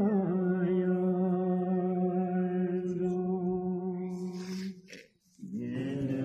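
A man chanting a Buddhist mantra, holding one long steady note. It breaks off about five seconds in, and after a brief pause the chant resumes on a lower note.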